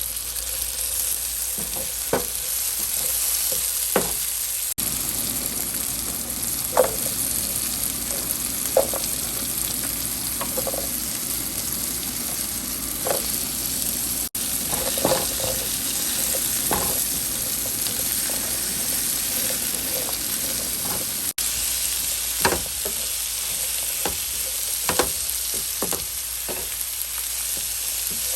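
Food sizzling and frying in hot oil in a pan, a steady hiss, with a dozen or so sharp knocks of a utensil against the pan as it is stirred.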